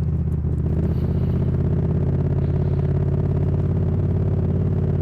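An engine running steadily: a low, even hum with a fast regular pulse.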